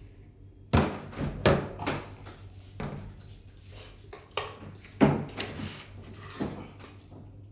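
A series of knocks and clatters of objects being handled, about seven in all, the loudest about five seconds in.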